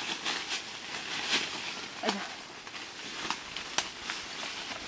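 Leaves and twigs rustling and crackling with sharp snaps as people push through forest undergrowth and handle branches; one louder snap near the end.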